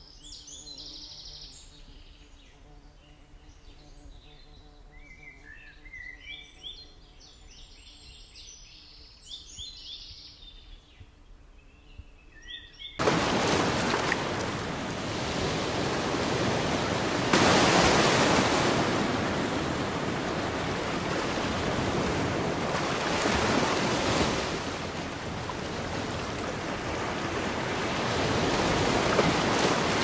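Small birds chirping with short, high calls over a quiet background. About halfway through, this cuts abruptly to a loud rushing noise that swells and eases every few seconds, like surf.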